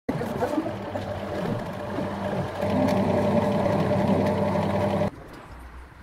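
Electric sewing machine running steadily as fabric is fed through, getting louder about two and a half seconds in, then stopping abruptly about five seconds in, leaving only a faint low hum.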